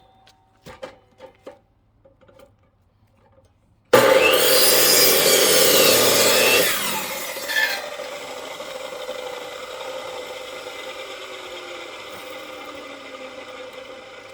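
A few light knocks, then about four seconds in a power saw bites into a log and cuts loudly for about three seconds with a wavering whine. After that the saw runs on more quietly and slowly dies down.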